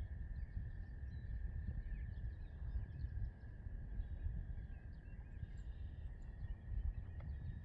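Outdoor lakeside ambience: a steady low rumbling noise, a thin steady high tone held throughout, and faint scattered bird chirps.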